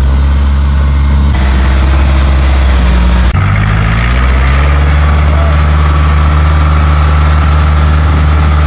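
Engine of a tracked rice-hauling vehicle loaded with bags of paddy, running steadily as it drives. Its tone changes abruptly about a second in and again about three seconds in.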